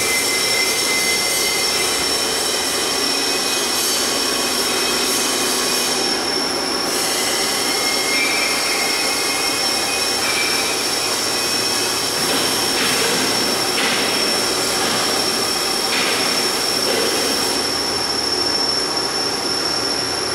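CNC gun drill machine running: a steady, loud mechanical noise with a high, unbroken whine and, at times, fainter squealing tones that come and go.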